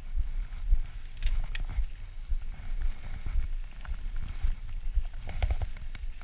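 Mountain bike rolling fast down a dirt track: tyres on loose dirt and wind buffeting the microphone make a continuous low rumble, with scattered clicks and rattles from the bike over bumps, a cluster about five seconds in.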